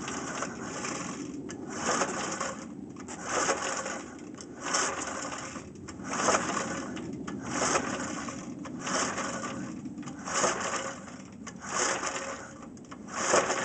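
Briggs & Stratton 3.5 hp lawn mower engine being pull-started cold in freezing weather. About ten quick pulls come roughly a second and a half apart, each a short burst of the recoil starter and the engine cranking, without the engine catching.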